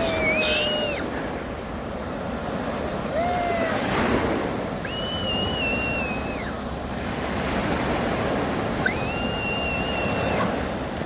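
Sea waves washing onto the shore in a steady surf, with wind on the microphone. Three long, high-pitched squeals sound over the surf: one at the start, one about five seconds in, and one near the end.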